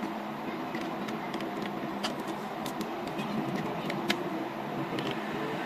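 Light clicks and taps of a micro-USB cable plug being handled and pushed into the port of a Creative Sound BlasterX G6 external sound card, a dozen or so scattered clicks, over a steady background hum.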